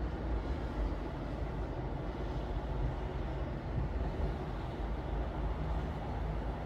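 Steady low rumbling background noise with no distinct events, used as a focus noise bed.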